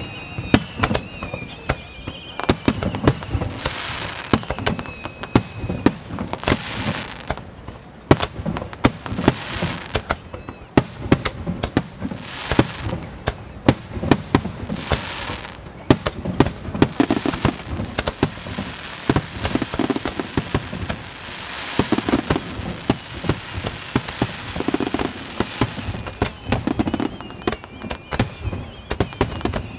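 Aerial fireworks display: a dense, rapid run of bangs and booms from bursting shells, going on without a break and overlapping one another.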